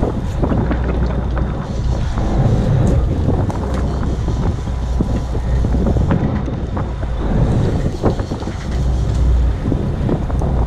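Wind buffeting the microphone over a fishing boat's running engine and the wash of the sea, with a few short crackles.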